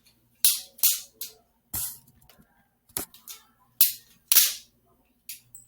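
Balisong (butterfly knife) being flipped: its handles clack sharply against each other and the blade, about seven irregular clacks.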